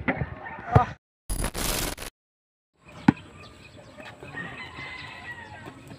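Sharp thumps of a basketball on concrete, one about a second in and another about three seconds in. Between them a short, loud burst of noise is cut in with silence on either side. A rooster crows in the background near the end.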